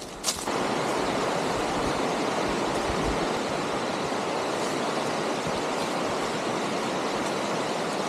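Steady rushing of a river running over rapids: an even, unbroken roar of water that starts suddenly just after the start and cuts off suddenly at the end.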